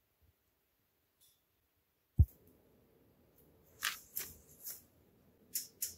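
A single sharp low thump about two seconds in, then about five light clicks over the last two seconds: the push buttons on a stainless range hood's control panel being pressed to switch on its LED lights.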